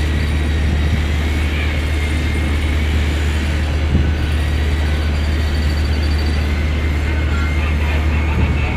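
Steady low drone of a ship's machinery, with a faint high whine held above it.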